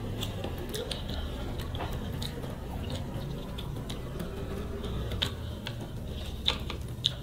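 Close-up eating sounds: chewing and wet mouth sounds, with fingers squishing rice and fish curry on the plates. Small clicks come all through, with a few louder ones near the end.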